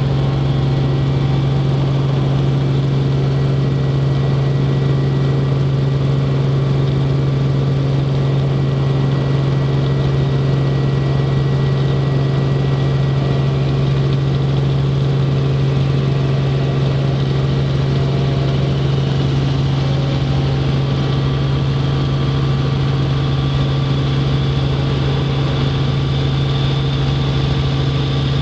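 Helicopter engine and rotors heard inside the cabin in steady cruise: a loud, constant low drone with steady higher tones over it.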